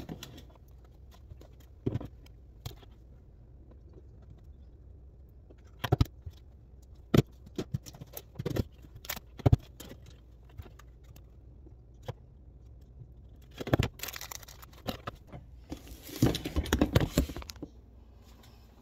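Clear plastic storage bins being handled while mesh screens are fitted over their vent holes: scattered sharp knocks and taps of the plastic, with a busy stretch of rustling and scraping near the end.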